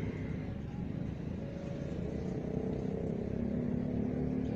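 A motor vehicle's engine running steadily: a low rumble with a faint hum that comes in and grows a little stronger in the second half.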